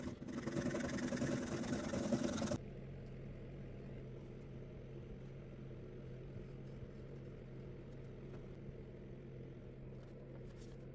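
Junior hacksaw cutting thin wooden stringers clamped in a vise, for about two and a half seconds; the sawing then stops abruptly and a steady low hum remains.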